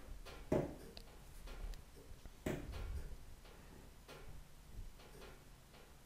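Faint room noise with light, irregular ticks and clicks, and two louder soft knocks about half a second and two and a half seconds in.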